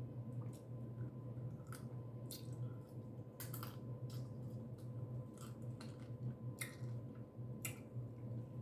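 Eating a boiled blue crab up close: scattered sharp cracks and clicks of shell being broken apart, with wet chewing sounds, over a steady low hum.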